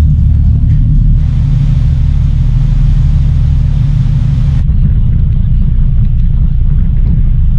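Ferry's engines running as a deep, steady rumble. A brighter hiss of churning wake water joins from about a second in for a few seconds.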